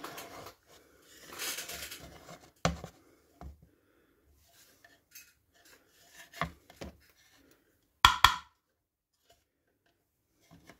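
A hardboard work board being shifted and lifted on a cutting mat: a short scraping slide about a second and a half in, then a few separate sharp knocks and clacks as it is handled. The loudest is a quick double knock about eight seconds in.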